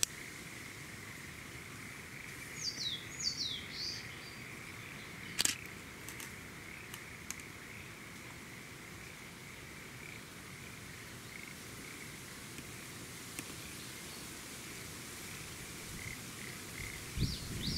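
Steady, faint chorus of frogs around flooded rice paddies. A bird calls in a few quick descending notes about three seconds in and again at the very end. There is a single sharp click about five seconds in, and a low rumble rises near the end.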